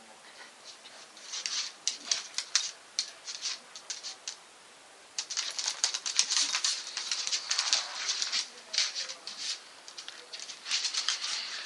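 Claws of a Staffordshire bull terrier and a Jack Russell terrier scrabbling and clicking on a wooden floor as the two dogs wrestle in play. The clicks come in rapid bursts, with a short lull about four seconds in.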